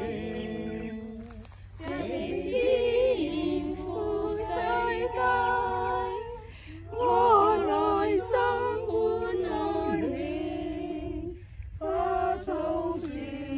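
A small group singing a hymn together without instruments, in held phrases with short pauses between the lines.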